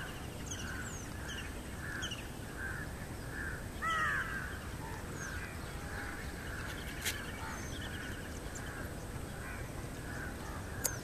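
Marsh birdsong: one bird repeats a short call about twice a second, and a louder, harsher call drops in pitch about four seconds in. Two brief sharp clicks come later.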